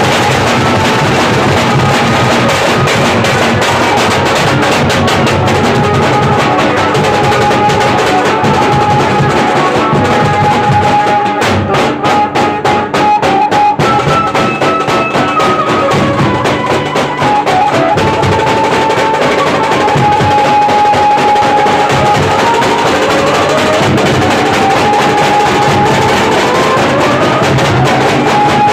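Nashik dhol drums and tasha beaten together in a fast, dense, loud rhythm. The beating thins out briefly about halfway through. A sustained high tone runs over the drums, sliding upward several times near the end.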